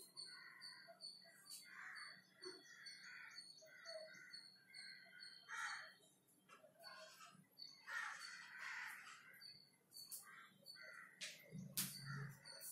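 Faint bird calls in the background: many short repeated calls with thin high chirps above them. A soft low bump comes near the end.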